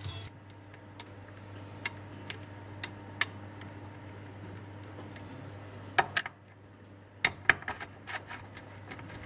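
A dozen or so sharp clicks and taps, scattered and irregular, bunched in the second half, over a steady low hum.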